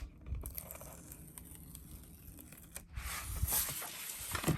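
Paper being handled, rustling, with a louder stretch of rustling about three seconds in.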